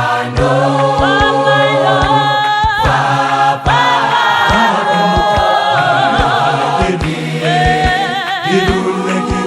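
Choir singing a Sesotho gospel song in several-part harmony, the voices holding notes with vibrato, over a regular percussive beat.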